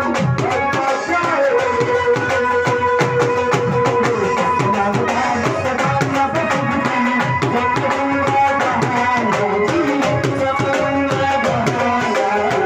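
Electronic keyboard playing a Hindi devotional bhajan melody over a steady tabla-style percussion beat, as an instrumental passage without singing.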